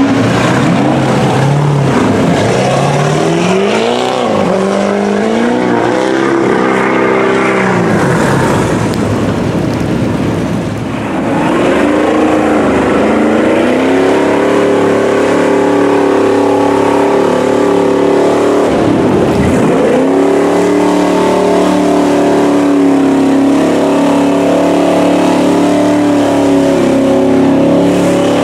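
Engines of lifted mud trucks on giant mud tyres running hard through deep floodwater, with the tyres churning the water. The engine revs up in several rising glides in the first seconds, then holds a steady high drone from about halfway on.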